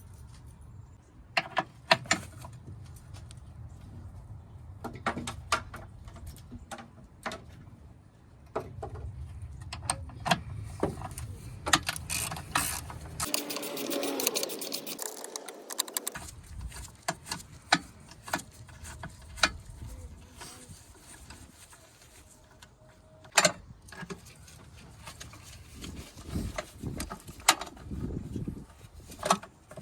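Socket ratchet clicking in short runs while a 13 mm bolt is worked loose, with scattered knocks and clatter of the tool and metal parts, and a few seconds of louder rustling about halfway through.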